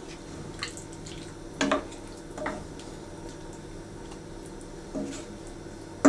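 Wooden spoon stirring a thick beef and vegetable stew in a stainless steel pot: a handful of brief wet clicks and taps over a steady low hum.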